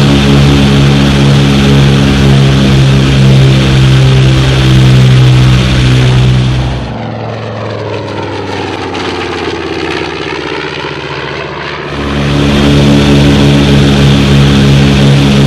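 Steady drone of a B-25 Mitchell's twin Wright R-2600 radial engines heard from inside the cockpit. About seven seconds in it drops to a quieter outside sound of the bomber passing, with a tone that sweeps down and back up. About five seconds later the cockpit drone returns.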